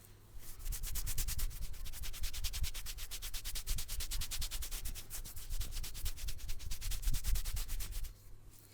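Hands rubbing briskly in fast, even strokes, starting about half a second in and stopping suddenly near the end.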